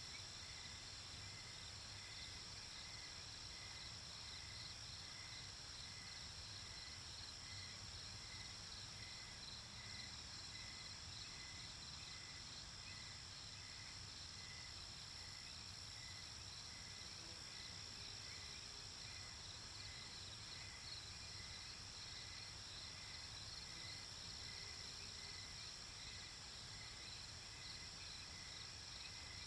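Crickets chirping steadily in several overlapping layers, one of them pulsing at a regular rate, over a soft, even low-pitched noise bed.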